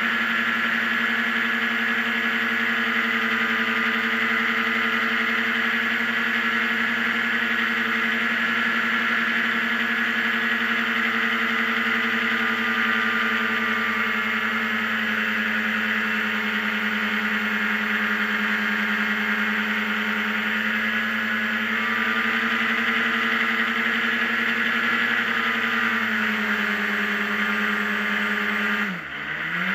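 A racing hovercraft's engine runs steadily at high throttle, heard on board. Its pitch sags slightly over the middle of the run. About a second before the end the engine note dips sharply and then climbs straight back, as the craft comes off the water onto land.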